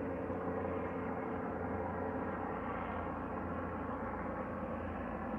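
Helicopters in flight: a steady, humming drone with an even pitch.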